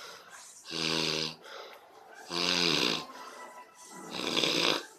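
A person snoring loudly, three heavy snores about one and a half to two seconds apart, each lasting under a second.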